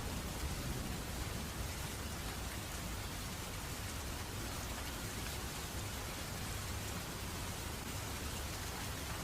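Steady rain falling, with a low rumble of thunder underneath that is a little stronger near the start.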